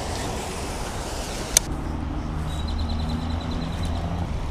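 Steady outdoor background noise, a sharp click about one and a half seconds in, then the low, steady hum of a road vehicle's engine for a couple of seconds.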